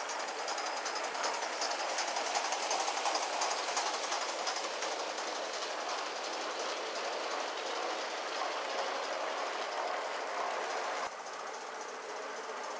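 Gauge 1 live-steam model of a Midland Railway Tilbury tank locomotive running with its train, its exhaust beats chuffing in quick succession. It is loudest a few seconds in and drops suddenly near the end.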